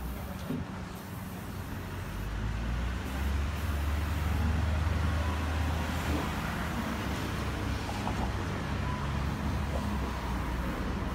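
Street traffic: a motor vehicle's low engine rumble swells about three seconds in and eases off after about six seconds, over steady road noise.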